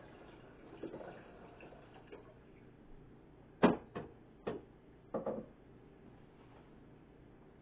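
Four sharp knocks of objects being handled, about three and a half seconds in and spread over the next two seconds, the first the loudest, with softer rustling and handling noise before them.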